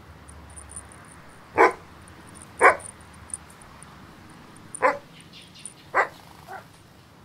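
Dog barking: four short barks spread a second or two apart, with a weaker fifth one near the end, over a faint, rapid high chirping.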